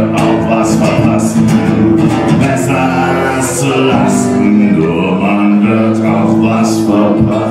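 Acoustic guitar strummed in a steady rhythm as live song accompaniment.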